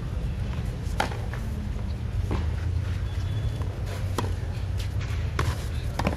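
Tennis rally on a clay court: a few sharp knocks of the ball off the rackets, one to two seconds apart, over a steady low rumble.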